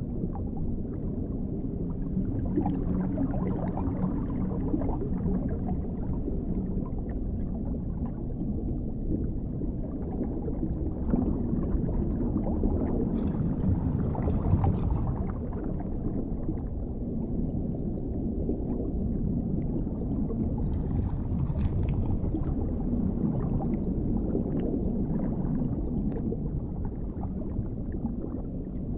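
Dark underwater ambience: a steady, muffled low rumble of water with faint scattered crackles above it, swelling slightly now and then.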